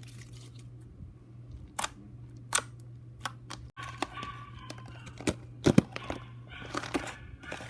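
Slime and plastic slime containers being handled: a few sharp clicks, then crackly, crinkly handling noise from about four seconds in, over a steady low hum.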